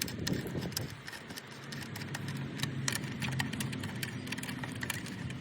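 Irregular metallic clicks and clinks of a 10 mm socket tool on the engine cover bolts as they are snugged down, over a low steady hum.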